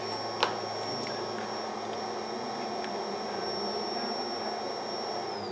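A small electric blower motor running steadily with a thin high whine, and a single sharp click about half a second in. Near the end the whine slides down in pitch as the motor is switched off and spins down.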